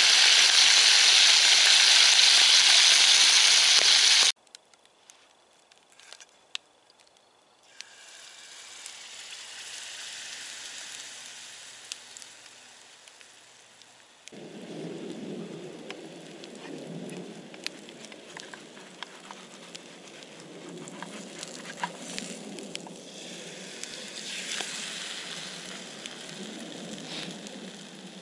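Bacon sizzling loudly in a cast-iron frying pan over a campfire, cutting off abruptly about four seconds in. After a few seconds of near quiet with a few clicks, a softer frying sizzle with scattered crackles of the wood fire comes back as a pancake cooks in the pan.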